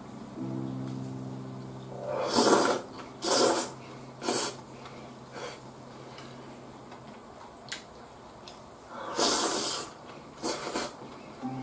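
A person slurping ramen noodles from a bowl: three loud slurps about two to four seconds in, then two more near the end. Quiet background music plays under the first half.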